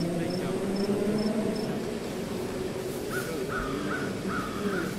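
Outdoor animal sounds: an insect ticks steadily about twice a second, then about three seconds in an animal gives a run of about five short, evenly spaced calls over a low background murmur.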